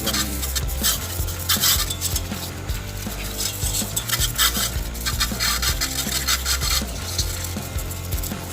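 Background music with a low bass line, overlaid by repeated bursts of scraping.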